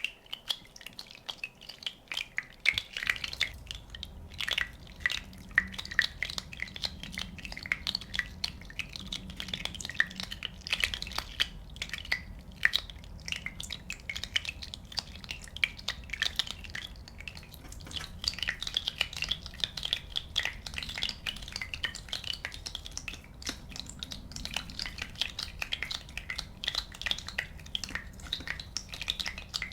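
Many small bubbles popping and crackling in quick, irregular succession, like a fizzing foam, with a low steady hum coming in about three seconds in.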